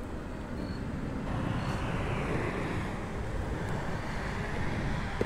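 A vehicle passing by: a broad rushing noise that swells about a second in and slowly fades.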